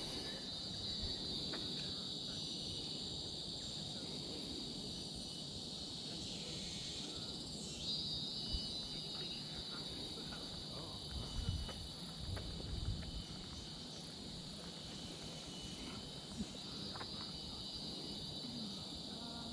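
Steady high-pitched chorus of insects, dipping for a moment about six seconds in and then coming back. A few soft low thumps sound in the middle.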